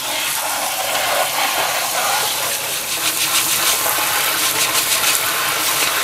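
Kitchen sink sprayer running, its spray of water splashing onto a dishwasher's metal mesh filter plate and cylindrical filter as the food gunk is rinsed off them.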